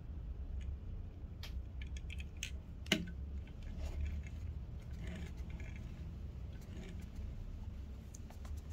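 Small clicks and taps of a 1:64 diecast model car being handled and set down on a tabletop, with one sharper knock about three seconds in. A low steady hum runs underneath.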